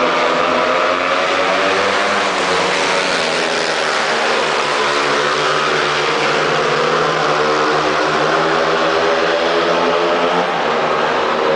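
A pack of speedway motorcycles racing around the track, their 500 cc single-cylinder methanol engines running hard at high revs. The mixed engine note rises and falls in pitch as the bikes pass through the bend and down the straight.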